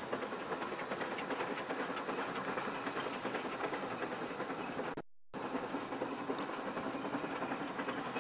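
C2-class narrow-gauge steam locomotive running with its train, heard as a steady, dense clatter of many fast ticks. The sound drops out completely for a moment about five seconds in.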